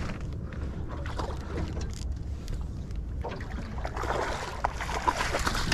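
Water splashing and sloshing beside a boat as a hooked flathead is drawn up and netted, busier from about three seconds in, over a steady low wind rumble on the microphone.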